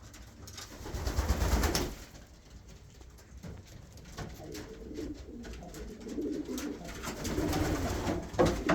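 Domestic pigeons cooing in a small loft, the low cooing growing more steady and repeated in the second half. About a second in there is a short burst of rustling noise, with scattered light clicks of birds moving.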